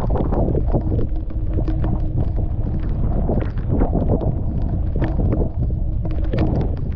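Wind buffeting the camera microphone in heavy rain, a dense uneven rumble, with many sharp taps of raindrops striking the camera.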